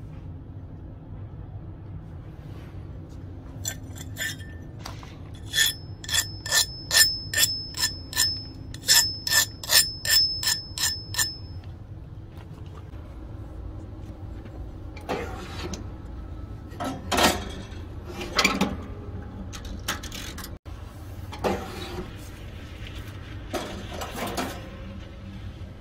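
A run of about twenty sharp metal-on-metal taps, roughly three a second, on a steel ax head lying on an anvil, each one ringing with a high clear tone. Later a few duller metal clanks and rattles.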